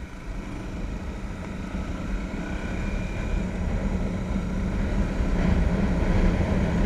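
Motorcycle riding on a road, heard from a helmet-mounted camera: engine and wind rush on the microphone, growing louder as the bike picks up speed.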